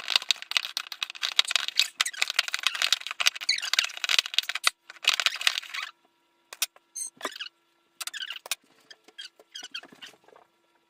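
Sticky shaving-cream and white-glue slime being squished and stirred: a dense run of wet crackling squelches for about six seconds, then a few scattered squelches and squeaks.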